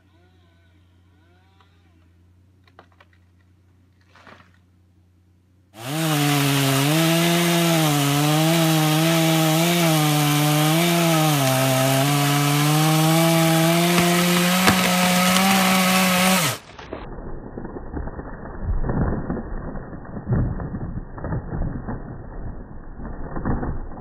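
Chainsaw running at high revs about six seconds in, its pitch wavering up and down under load as it cuts wood, then stopping abruptly about ten seconds later. After a cut to a duller-sounding recording, irregular low thuds and rustling follow.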